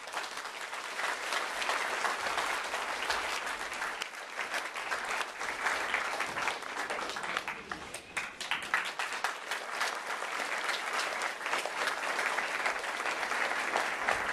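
Audience applauding: many hands clapping together in a dense, sustained patter.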